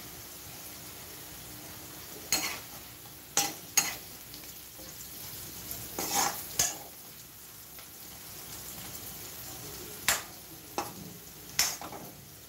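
A spatula scrapes and knocks against a metal kadai in short bursts every few seconds as bitter gourd slices are stirred, over a steady low sizzle of the slices frying in oil.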